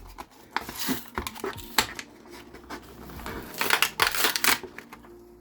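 Toy packaging being torn and pulled open by hand: plastic and cardboard crinkling and crackling in irregular bursts, with sharp clicks and snaps. The handling is densest from about three and a half to four and a half seconds in.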